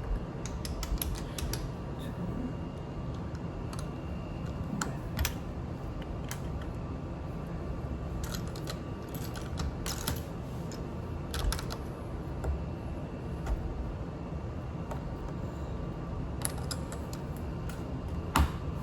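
LEGO plastic pieces being handled and pressed together: clusters of small clicks and rattles over a steady low background hum.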